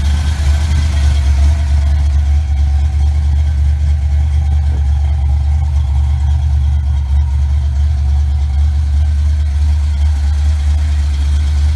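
Fox-body Mustang GT's 5.0-liter (302) small-block Ford V8 idling steadily, freshly started after a complete engine and interior wiring harness replacement.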